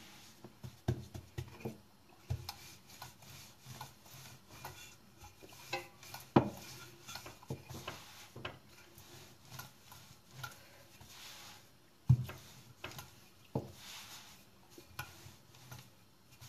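Wooden rolling pin rolling pizza dough out on a floured granite countertop: a soft rubbing with scattered knocks of the pin and hands on the stone, the sharpest about six and twelve seconds in.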